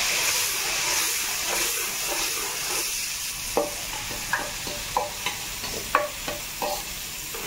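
Ginger-garlic-onion paste sizzling in hot oil in an earthen pot as it is stirred with a metal spoon. From about halfway, the spoon knocks and scrapes against the pot in a string of sharp clicks while the sizzle eases off.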